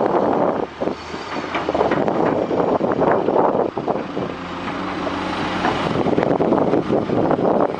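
Heavy construction machinery running, a diesel engine hum under loud rough noise, with a short dip in level about a second in.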